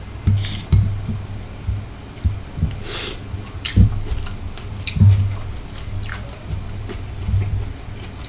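Close-miked chewing of sautéed shrimp in sauce: wet mouth smacks and squishes over irregular low thumps, with a longer crackly smack about three seconds in.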